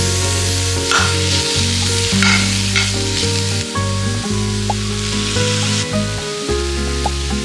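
Food sizzling in hot oil in a pan while a spatula stirs it, with brief louder surges of sizzle and scraping as it is moved, over background music.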